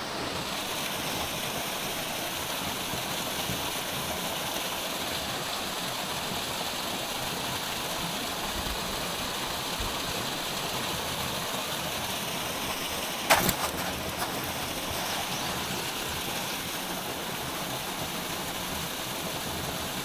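Shallow mountain stream running over a small rocky cascade: a steady, even rush of water. A single sharp knock about thirteen seconds in, with a couple of faint ones just after.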